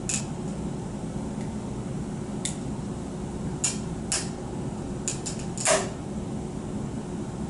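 Notched cross-laminated timber beam cracking under load: a scatter of sharp ticks and snaps, the loudest about three-quarters of the way in, over a steady low hum. They are the sign of a crack opening at about 45 degrees from the notch corner in the cross layer.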